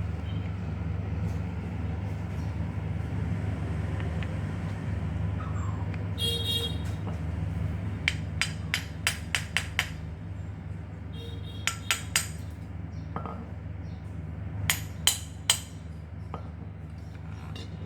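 Small sharp metal clinks and taps as parts of a handheld cutting machine are fitted together during reassembly: a quick run of about six near the middle, then groups of three or four, over a steady low hum.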